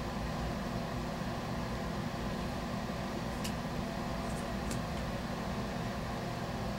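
Steady low hum with a faint hiss, the background noise of a small room, with a few faint clicks near the middle.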